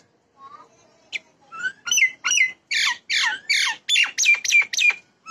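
Common myna calling: a string of notes that starts sparse and quickens into a loud run of harsh, falling calls, about three a second, over the second half.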